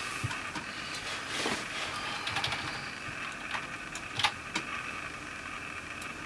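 Scattered clicks of a computer mouse and keyboard being worked, a handful of short taps spread over a few seconds, the loudest a little past four seconds in, over a steady faint background hum.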